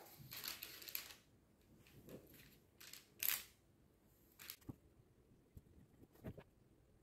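Baking paper rustling and crinkling in several short bursts as it is handled, with the loudest about three seconds in. A few light knocks of a plastic jug are mixed in.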